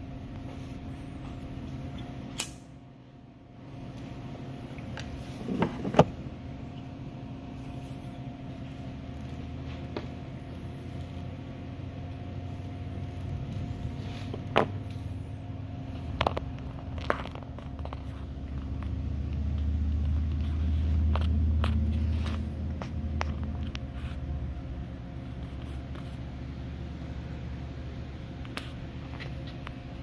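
Blower fan of an air purifier demo unit running steadily with a hum. A low rumble swells and fades around the middle, and a few sharp clicks and knocks sound now and then.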